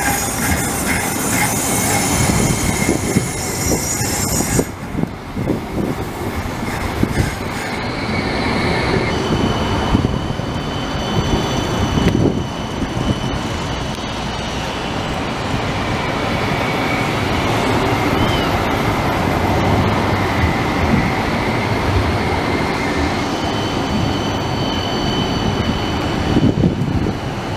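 CAF Urbos low-floor trams running past at close range: a steady rolling rumble from wheels on rail, with high steady whines and some wheel squeal above it. The sound changes abruptly a few times as one passing gives way to another.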